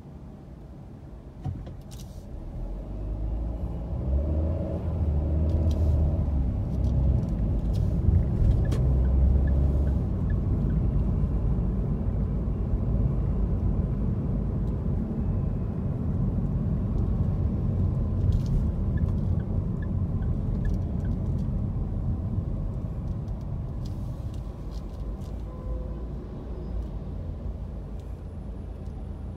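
Car driving in city traffic heard from inside the cabin: a low engine and road rumble that swells as the car pulls away about two seconds in, is loudest for the next several seconds, then settles into a steady drone that slowly eases.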